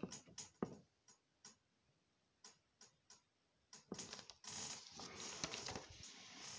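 Handling of a paper book: a few sharp clicks at first, a quiet gap, then about two seconds of paper rustling and clicking as the book is moved and lowered.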